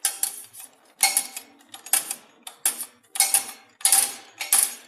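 CNC channel-letter bending machine at work on a letter strip: a run of sharp metallic clacks, each with a short ring, coming every half second to a second from its cutting and bending strokes.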